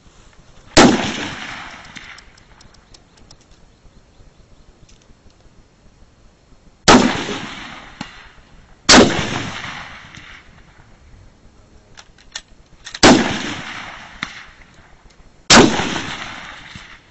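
Five 7.92 mm Mauser bolt-action rifle shots, each a sharp crack trailing off in about a second of echo, the second and third only two seconds apart; faint light clicks come between the shots.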